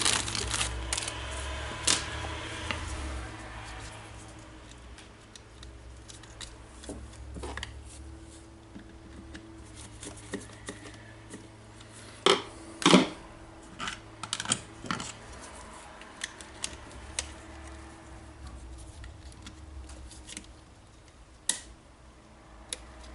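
Hand work fitting new carbon brushes into a diamond core drill's motor: scattered small clicks and taps of parts being handled, with two sharper, louder clacks about twelve and thirteen seconds in, over a faint steady low hum.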